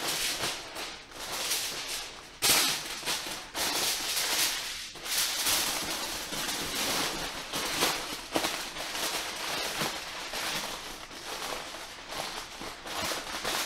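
Heavy-duty aluminum foil crinkling and crackling as it is folded and pressed tightly around a pork shoulder, with sharper crackles now and then.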